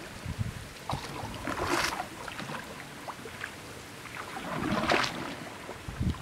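Water splashing and lapping along a patched wooden canoe's hull as it moves along the river, swelling twice about three seconds apart, with a few light knocks in between.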